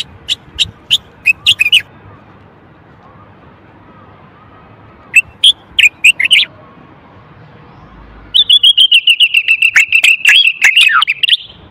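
Male common bulbul singing: a phrase of quick, sharp whistled notes at the start and another near the middle, then a longer rapid run of notes in the last three seconds that ends with a few falling notes.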